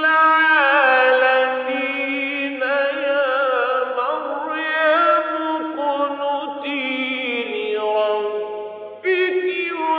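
A man's voice reciting the Quran in the melodic mujawwad style: long, held, ornamented phrases with wavering pitch. One phrase ends and a new one starts about nine seconds in.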